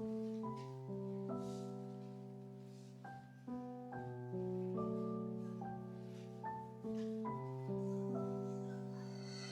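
Soft background music: piano notes and chords played at a slow, even pace.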